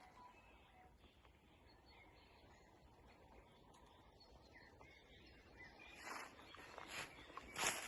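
Quiet woodland with faint, scattered bird chirps; about six seconds in, a person's footsteps start up, irregular steps rustling through the ground cover.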